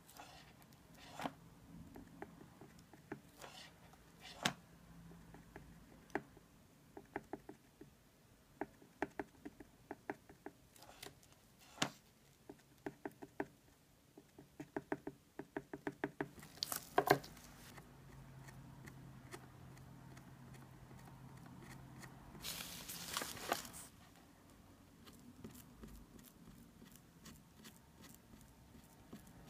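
Heated encaustic stylus tip tapping on a wax-coated board as wax dots are dabbed on: a string of faint clicks, some in quick runs of four or five a second. A brief rustling hiss comes near the end.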